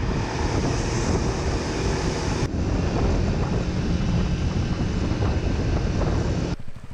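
Wind buffeting the microphone of a camera on a moving motorbike, with the bike's engine and road noise underneath. The sound changes abruptly about two and a half seconds in and drops away sharply near the end.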